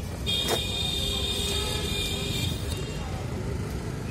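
Steady street traffic rumble, with a vehicle horn sounding for about two seconds just after the start.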